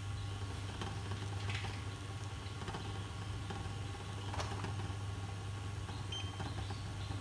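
Glass-top cooktop humming steadily under a lidded pot of soup, with a few faint ticks from the heating pot. A short high beep comes near the end, as the cooktop setting is changed to turn the heat down.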